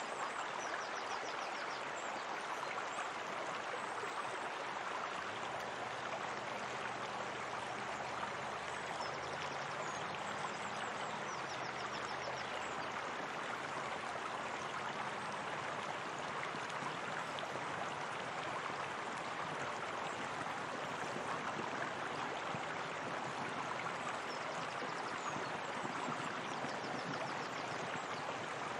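Steady flowing and splashing water, a small waterfall running into a pool. Faint high trills come through every few seconds.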